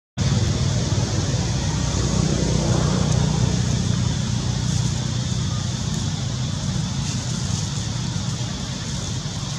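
Steady outdoor background noise: a low rumble with an even hiss above it, starting abruptly.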